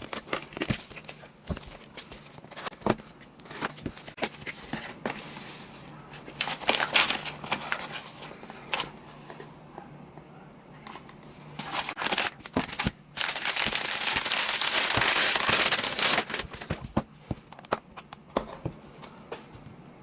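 Shipping package being opened by hand: packaging crinkling and crackling, with many small clicks and knocks. About 13 seconds in comes an unbroken stretch of rustling lasting some three seconds, the loudest part.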